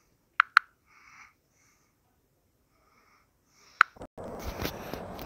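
Near silence broken by a few sharp clicks, then a little after four seconds in a steady, even background noise starts.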